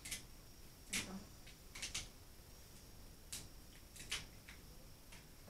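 Eating sounds from a seafood boil eaten by hand: a scatter of short, faint clicks and smacks at irregular intervals, a dozen or so, with the shell cracking and chewing of crab and shrimp.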